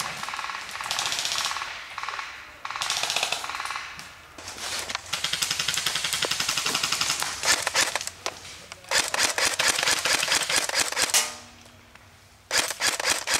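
AK-style airsoft rifle firing on full auto: a fast, even rattle of shots in several long bursts of one to three seconds, with a longer pause near the end before one more burst.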